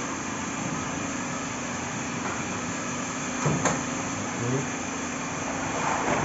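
Matachana SC 500 steam autoclave running with a steady hum and hiss, with one sharp knock about three and a half seconds in.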